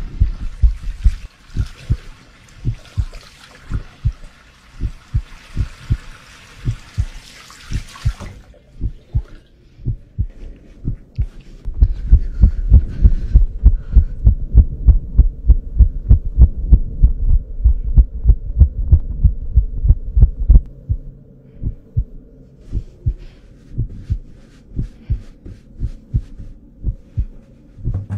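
A fast heartbeat sound effect beats steadily throughout, loudest through the middle stretch. For the first eight seconds or so a tap runs water over washing hands, stopping abruptly.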